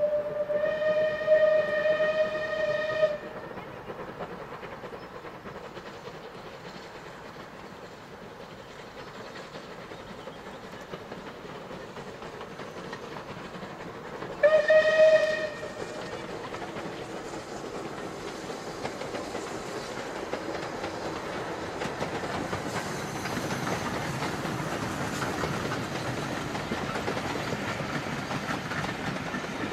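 Steam whistle of a Southern Railway rebuilt West Country-class 4-6-2 steam locomotive: a long steady blast that stops about three seconds in, then a short second blast about halfway. Between and after the blasts the train's running noise on the rails grows louder through the second half.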